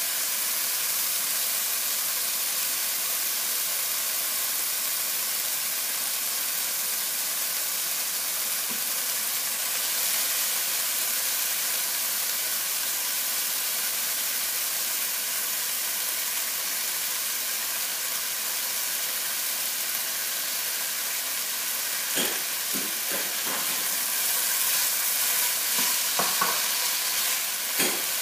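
Chicken, jalapeño and ginger stir-fry sizzling in a nonstick frying pan: a steady hiss. Over the last several seconds a spatula stirs and scrapes the food against the pan in a run of short clicks and scrapes.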